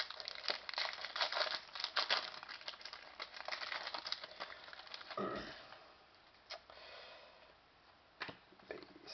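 Hockey trading cards and their foil pack wrapper being handled: dense crinkling and rustling for the first five seconds or so, then quieter, with a few single clicks as cards are flipped.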